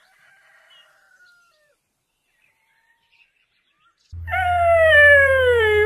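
Near silence, then about four seconds in a long, high-pitched vocal call that slides down in pitch, over a steady low electrical hum.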